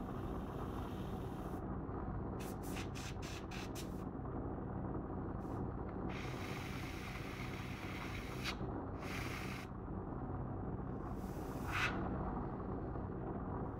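Airbrush hissing in bursts as its trigger is worked: a quick run of short puffs about two seconds in, then several longer hisses while the paint is laid on. A steady low hum continues underneath.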